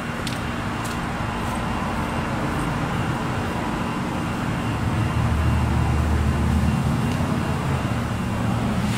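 Steady outdoor background noise with a faint steady hum. A low vehicle rumble swells about five seconds in and eases off near seven seconds.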